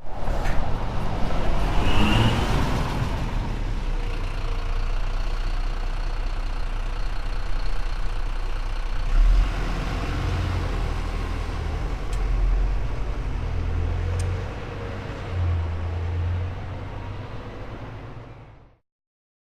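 City bus fitted with a ZF EcoLife automatic transmission pulling away from a bus stop, heard from the sidewalk about 20 meters off. The engine noise runs continuously, swells a few times as the bus accelerates and fades out near the end.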